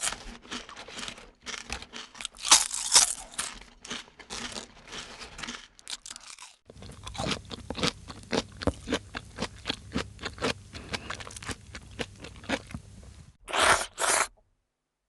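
A person chewing and crunching crisp food with the mouth close to the microphone, irregular crunches at first. About six and a half seconds in it changes to a quicker, steadier run of sharp crunching chews over a low hum, ending with two louder crunches.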